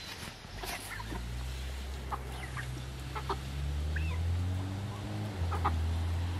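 Backyard hens clucking now and then in short calls. Under them, a low mechanical hum comes in about half a second in and rises slightly in pitch.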